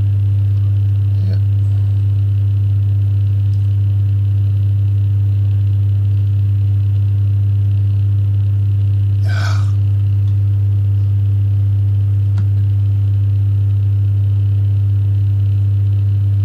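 Steady low electrical hum, a mains-frequency buzz with fainter overtones, unchanging throughout, with a short faint noise about nine seconds in.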